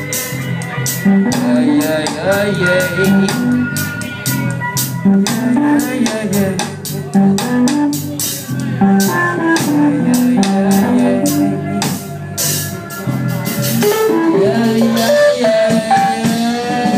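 Live band playing in a small bar: a guitar and a moving bass line over a steady run of drum hits.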